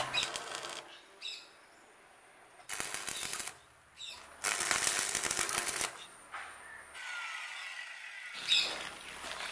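Electric arc welding: two bursts of dense crackling and sizzling, the first under a second long and the second about a second and a half, as a small washer is welded on.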